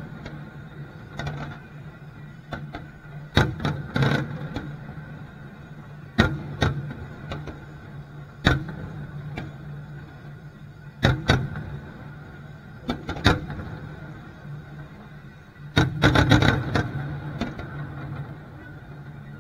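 Aerial firework shells bursting: sharp bangs every second or two, with a rapid cluster of bangs about sixteen seconds in, over a steady low hum.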